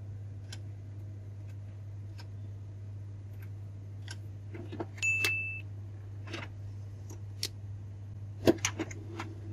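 A single short electronic beep about five seconds in, over a steady low hum, with scattered light clicks and a cluster of sharper clicks near the end.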